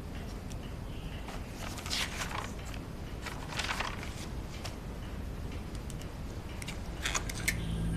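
Low, steady room tone with a few faint, scattered soft rustles and clicks.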